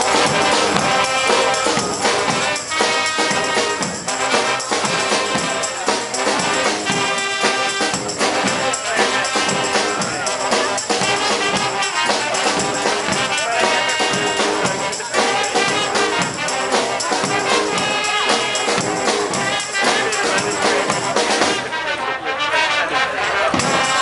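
Street brass band playing, horns carrying the tune over a steady beat.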